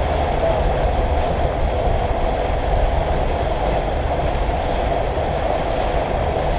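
Boat motor running steadily under way, a constant low rumble and hum with water and wind noise around it.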